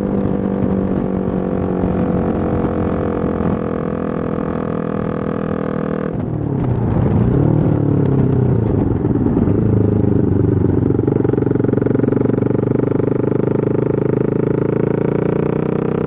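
Motorcycle engine running under way at steady revs. About six seconds in the revs drop and the pitch wavers as the bike slows. It then settles into a steady, slightly louder note as it pulls on.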